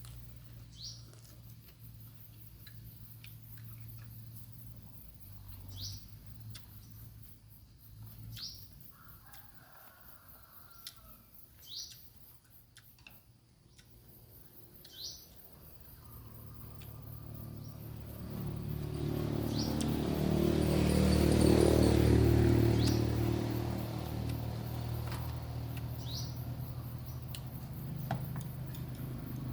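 A bird chirping: single short rising chirps every two or three seconds. In the second half a low, motor-like hum swells up, peaks and fades back.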